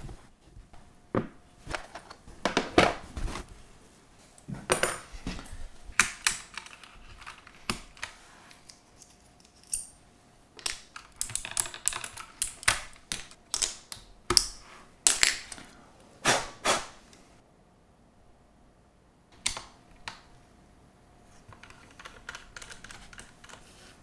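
Plastic keycaps being pulled off a mechanical keyboard and dropped onto a wooden desk: irregular sharp clicks and short light clatters, thickest in the middle, with quiet gaps near the end.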